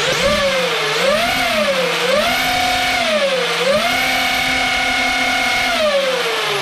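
Arrma Infraction 8S RC car's brushless motor and drivetrain whining as it is revved with its saw-blade wheels spinning off the ground. The pitch rises and falls twice, then holds high twice for a second or more each, and winds down at the end.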